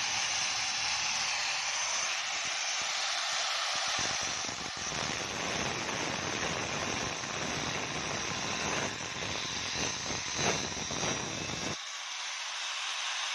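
Angle grinder with a thin abrasive cutting disc running and cutting into the steel shell of a hermetic A/C compressor, a steady high whine with grinding noise. About four seconds in the cut bites harder and the sound grows fuller and harsher, with some uneven scraping toward the end, then eases back to the lighter whine near the end.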